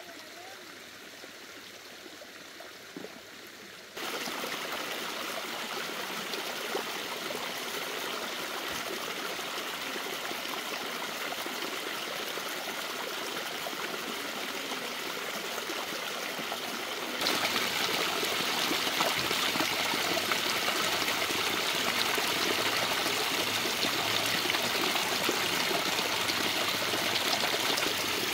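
A small stream of water running and pouring over a little drop, a steady rushing splash. It jumps louder about four seconds in and again after about seventeen seconds.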